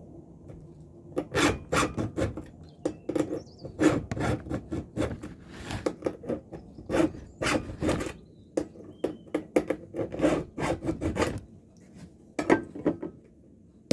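Hand file strokes rasping across the cutter teeth of a 25 cm bar Greenworks chainsaw chain being sharpened, a run of short scrapes roughly two a second that stops near the end.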